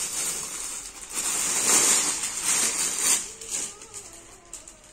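Rustling of fabric stoles being unfolded and handled, a rough hiss that swells about a second in and dies away after about three seconds.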